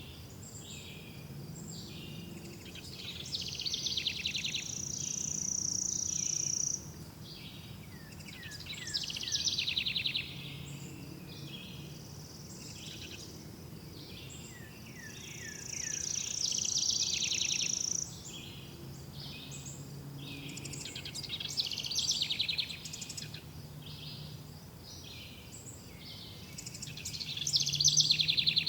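Songbird singing: phrases of fast trills and a high held whistle, coming back every five or six seconds, over a faint steady low hum.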